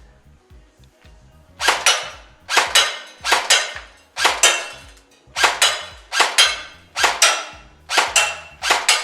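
Lancer Tactical LT-19 electric airsoft rifle fired in single shots, about nine shots less than a second apart, each a quick double crack. The shots begin a little over a second in.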